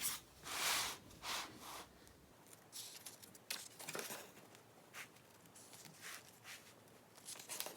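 Paper handling: album pages or photo cards rustling as they are turned, with a few short swishes in the first couple of seconds (the loudest about half a second in), then faint ticks and rustles.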